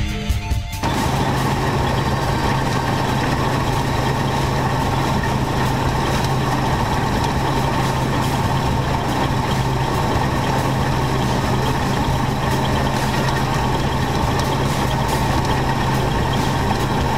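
New Holland CX820 combine harvester running steadily while cutting grain, heard from up on its header: a constant mechanical drone with a steady low hum.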